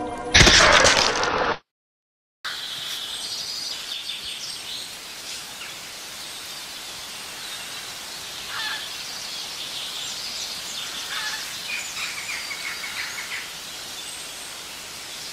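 A loud burst of noise lasting about a second that cuts off abruptly, then after a moment of silence a steady outdoor ambience: birds chirping over a constant hiss.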